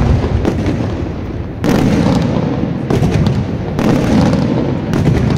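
Daytime aerial fireworks: a series of loud shell bursts, roughly one a second, each followed by a rolling low rumble.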